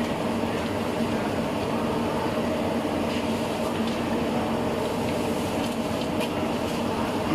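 A steady mechanical drone with a low hum, and a few faint clicks in the second half.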